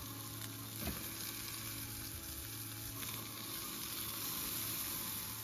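Diced tri-tip steak sizzling in a hot cast iron skillet, with a short knock of a utensil about a second in.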